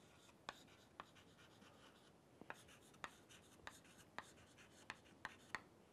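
Chalk on a chalkboard as words are written by hand: a faint string of short, irregular taps and scratches.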